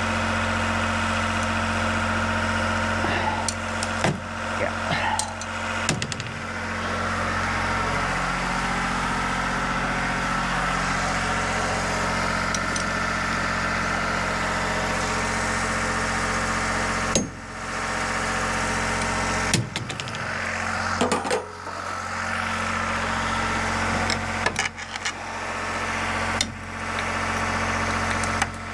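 A small engine running steadily at a constant speed, a level hum that does not change. Metal clinks and knocks come now and then from hand tools and parts being worked on the snowmobile's ski suspension.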